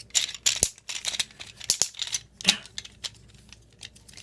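Plastic parts of a Transformers Generations Sandstorm action figure clicking and knocking as it is handled, an irregular string of sharp clicks mixed with short rustles.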